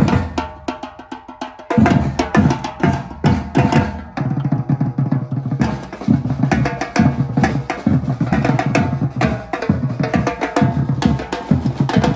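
Batucada drum ensemble playing a fast samba rhythm: deep bass drums under dense snare and drum hits. The groove breaks off briefly about two seconds in and comes back in at full strength.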